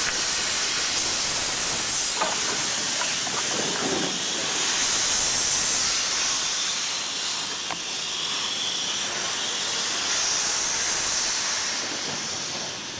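Steam hissing steadily from an FS Gr.981 rack steam locomotive, escaping low around its cylinders and wheels, with a few faint clicks.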